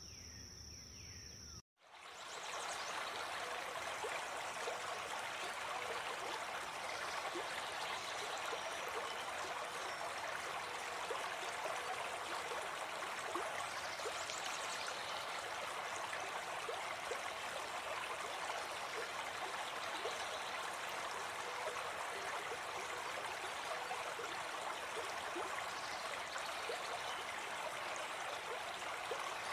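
Steady rushing of running water, like a stream, starting about two seconds in after a sudden cut. Before the cut there is a short stretch of steady high chirring, like crickets.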